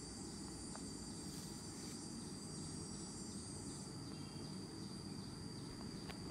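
Steady high-pitched insect trill over a low background hum.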